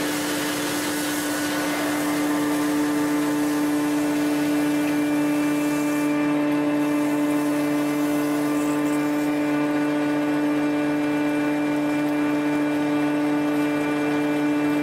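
Cylindrical-die thread rolling machine running as its two grooved dies roll an Acme thread into a steel bar: a steady mechanical hum with a strong low tone, over a hiss that eases about six seconds in.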